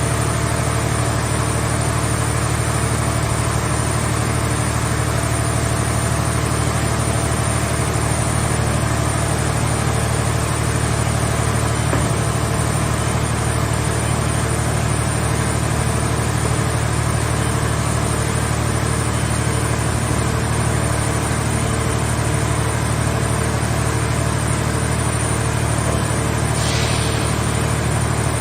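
Portable scrap car baler's engine and hydraulic power unit running steadily at a constant pitch.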